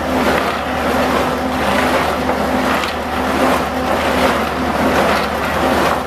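Concrete mixer repurposed as a rotary tumbler, running: a steady motor hum under a loud, even rushing noise of ceramic media, crushed garnet grit and water churning in the turning drum.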